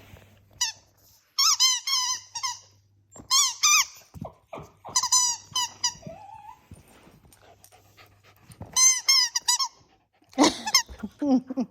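A squeaky dog toy being chewed by a toy Aussiedoodle, squeaking in about six quick clusters of sharp, wavering squeaks.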